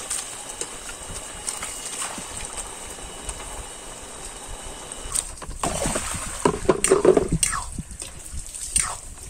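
Metal ladle stirring a wet cabbage curry in an iron karai, the pot simmering with a steady hiss. About five seconds in, several short calls falling in pitch come in over it.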